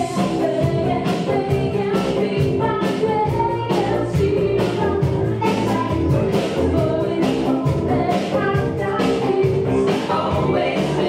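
Live band playing dance music with a steady beat, a woman singing into a microphone.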